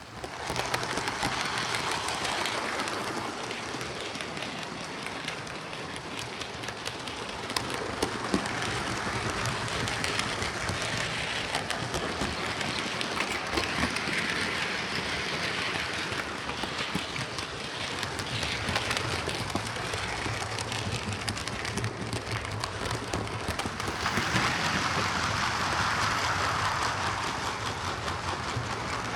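Hornby Class A4 OO gauge model locomotive running on track: a steady motor whirr and rattle of wheels on rails, swelling louder about 24 seconds in. The loco is running with its drive gear back in place on the axle spline.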